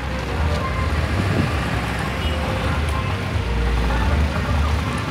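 Motorbike engine running close by at low speed, a low rumble that grows strongest about three and a half seconds in.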